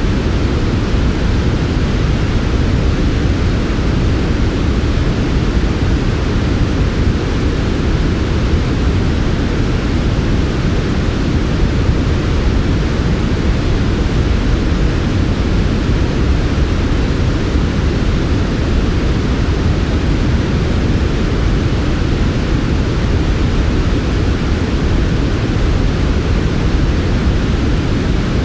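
Steady generated sleep noise: an even, smooth hiss weighted toward the low end, with a softer band of hiss above.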